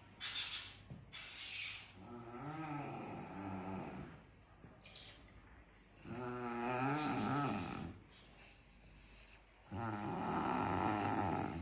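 A sleeping person snoring: three long snores about two seconds each, a few seconds apart, the last two louder.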